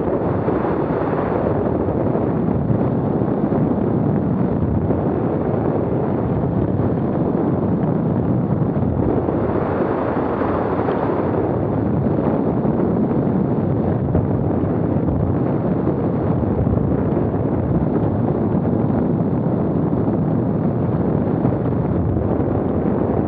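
Strong wind buffeting the microphone: a steady, loud rumbling rush with two stronger gusts, about a second in and about ten seconds in.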